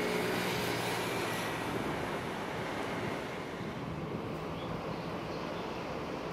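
Steady rush of wind and water with a faint low hum as a large refrigerated cargo ship passes close by.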